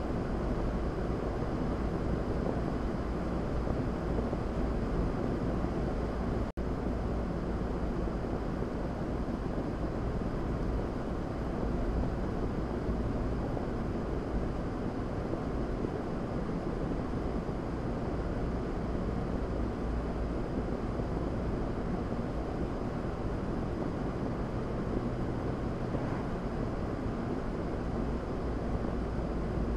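Steady road and tyre noise with engine hum, heard inside a car's cabin cruising at about 45 mph. The sound cuts out for a split second about six and a half seconds in.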